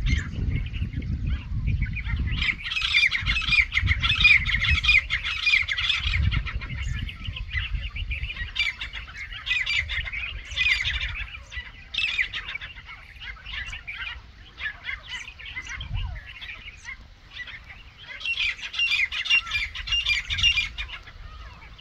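A flock of grey francolins calling over one another in harsh squawking chatter that swells and eases in bouts, as rival groups squabble. Low wind rumble on the microphone comes and goes.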